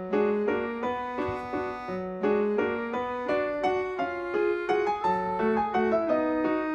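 Background piano music: a gentle melody of separate notes, each struck and left to fade, a few notes a second.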